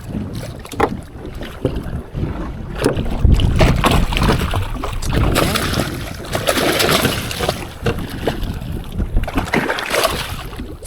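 Strong wind buffeting the microphone over water splashing and sloshing against a small boat, with scattered knocks.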